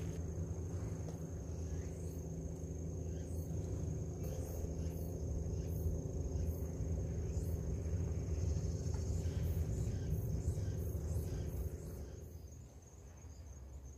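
A steady low droning hum that fades about twelve seconds in, over an insect's thin, high, continuous trill, with scattered faint light clicks.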